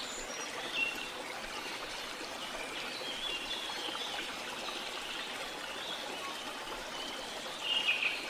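Water flowing and trickling steadily, with birds chirping briefly over it and a louder burst of chirps near the end.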